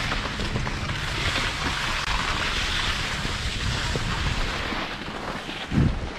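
Skis sliding and scraping over packed snow, with wind buffeting the microphone, and a short low thump near the end.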